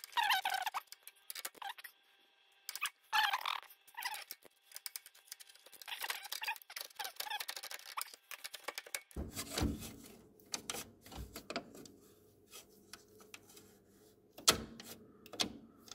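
Steel steering sector gear and its mounting on a White Outdoor lawn tractor being worked by hand to check its play. There are short bursts of metal squeaking in the first half, then a quicker run of light metallic clicks and rattles from about nine seconds in.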